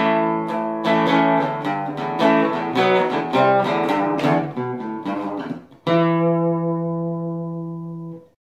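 Outro music: a guitar picking a run of notes, then a final chord struck about six seconds in that rings out for two seconds before cutting off suddenly.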